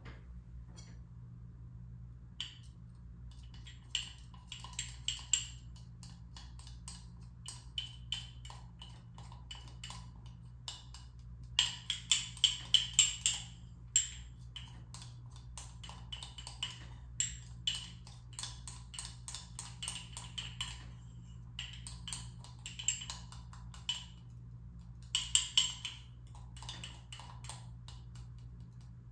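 Hands handling small hard objects: a run of light clicks and taps in irregular clusters, loudest about twelve seconds in and again near the end, over a steady low hum.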